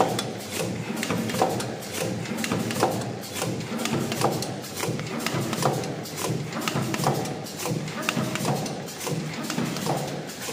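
Automatic alcohol-pad packaging machine running, with a sharp clack about every one and a half seconds over a busy clatter of smaller mechanical ticks.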